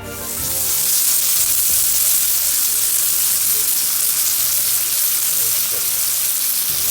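Food frying in a hot pan: a loud, steady sizzle that starts at once and cuts off abruptly.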